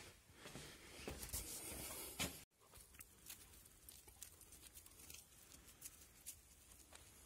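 Near silence: faint rustling and small scattered clicks, broken by an abrupt cut about two and a half seconds in, with only quiet outdoor background after it.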